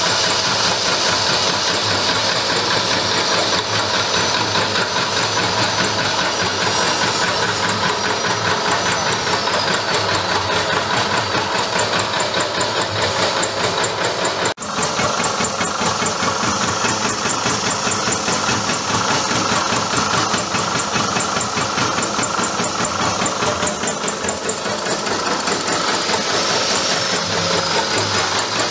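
Electric peanut-chopping machine running steadily, its belt-driven cutter chopping peanuts into topping, with a fast, even rattle.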